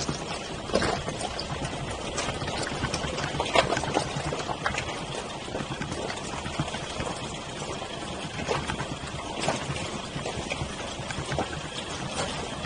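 Car driving along a rough, stony dirt track, heard from its roof: a steady noise of tyres on gravel and rock, with irregular knocks and clatters as the wheels go over stones.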